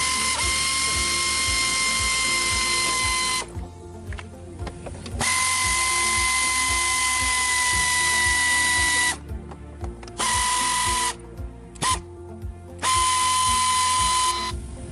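A handheld power tool such as a drill-driver running with a steady high whine, switched on and off in bursts: two of about four seconds each, then several shorter ones of a second or so. Background music with a steady beat plays underneath.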